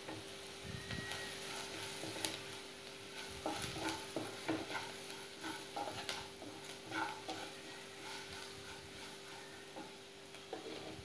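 Wooden spatula stirring sautéed onions and curry leaf powder in a nonstick kadai, with irregular scraping strokes against the pan, busiest in the middle, over light sizzling.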